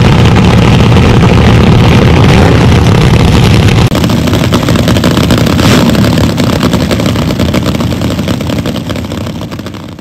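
Several nitromethane-burning vintage dragster engines running loud and rough together. The level dips abruptly about four seconds in, then the sound fades out near the end.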